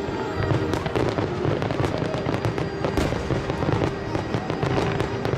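Aerial fireworks crackling and popping in rapid succession, with a sharper bang about three seconds in, over music playing underneath.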